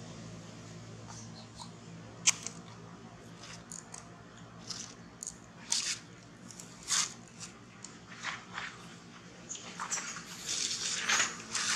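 Scattered sharp crackles and clicks of a baby macaque cracking and chewing peanuts, with a denser run of crackling near the end.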